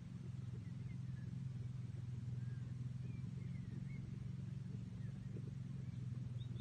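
An engine idling steadily, a low even hum, with faint bird chirps now and then.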